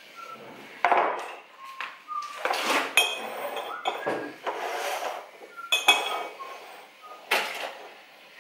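Kitchen clean-up clatter: crockery, glass and bottles being set down and moved on a counter, with several sharp clinks and knocks that ring briefly.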